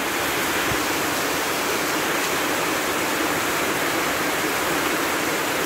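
Heavy rain pouring down, a steady, even rush of falling water.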